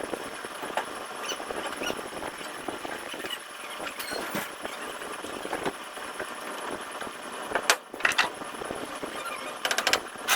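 Metal tools tapping and knocking on a car body panel during dent repair: scattered light clicks, two sharp knocks about eight seconds in, and a quick run of clicks near the end, over steady workshop background noise.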